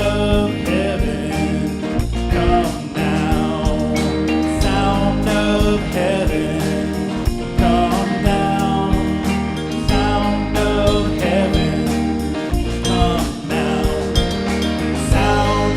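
Worship band music with singing over a steady beat, during an instrumental-heavy stretch of the song.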